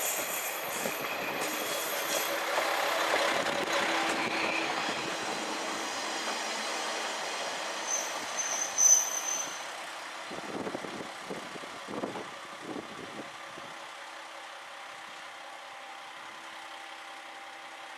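Isumi 350-type diesel railcar slowing into a station, its running noise fading. There is a brief high brake squeal about nine seconds in, then a few dull knocks as it comes to a stop. After that the engine idles steadily.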